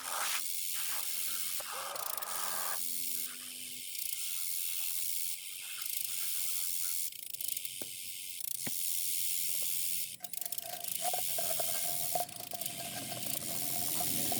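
Scrubbing brush working over a plastic chick waterer with soapy water: a continuous hiss that breaks off briefly now and then.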